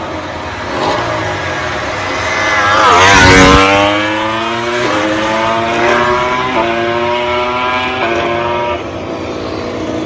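MotoGP racing motorcycles at full throttle on the straight. One passes loudest about three seconds in, its engine pitch swooping down as it goes by. Then engines climb in pitch in steps, each broken by a short drop as the bikes shift up through the gears.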